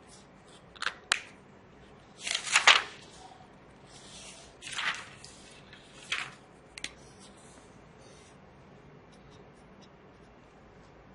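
Handling a paper textbook while marking it with a Plockey water-based marker: two sharp clicks about a second in, then short swishes on paper, the loudest around the third second, another near five seconds and a shorter one near six, followed by faint ticks.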